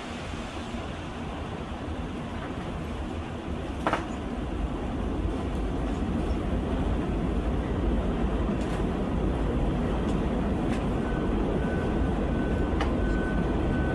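Train on the elevated line rumbling past, growing louder over the first half, with a sharp click about four seconds in. A thin high whine sounds on and off near the end.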